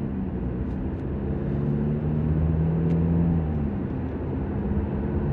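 Engine hum and tyre road noise heard from inside a moving car's cabin. The low hum eases off for a moment a little past three seconds in, then picks up again.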